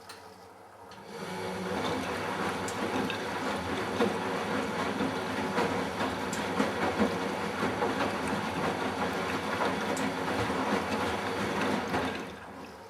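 Matura Autostatic 850 washing machine's drum turning the laundry in the wash water on the delicates 60°C program, with a rough, clattering mechanical noise. It starts about a second in and stops shortly before the end.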